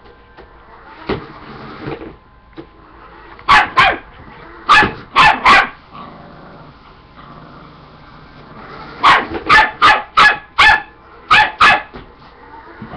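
A dog barking in short, sharp barks, in bursts: two about three and a half seconds in, three around five seconds, then a quicker run of about seven from nine seconds on.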